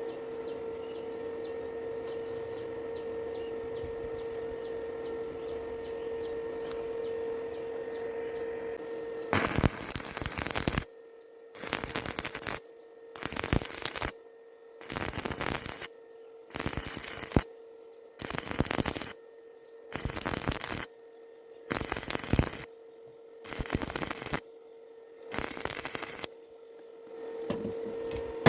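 A steady hum, then from about nine seconds in a stick-welding arc crackles and hisses in about ten short bursts of roughly a second each, with brief breaks between them. The arc is struck and broken over and over, the stitch technique used to keep thin metal from burning through.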